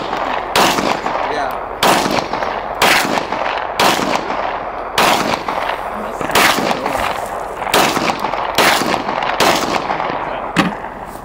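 Designated-marksman rifle shots fired one after another, about ten in all at roughly one a second, each sharp crack followed by a short tail of echo.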